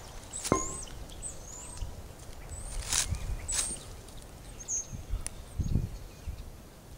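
A sharp metallic clink of iron dumbbells knocking together about half a second in, then lighter knocks from handling them and a dull thump near the end, while small birds give short high chirps.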